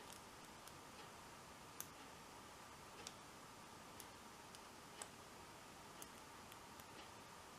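Faint, irregular light clicks and ticks of a lock pick working the pins of an American Lock 1100 padlock under light tension, about one a second. The lock is stuck in a false set.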